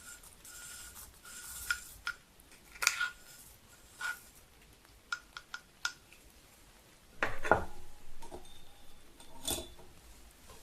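Dry black tea leaves scraped off a tea scoop into a porcelain gaiwan: short rubbing scrapes and light clicks, then a louder knock and rattle about seven seconds in.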